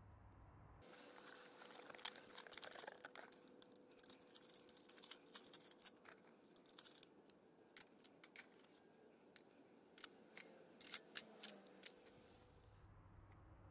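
Faint handling sounds of a NAFCO Flame Stove L stainless steel wood-burning camp stove: rustling and scattered light clicks and clinks, with a quick run of sharper clinks about eleven seconds in.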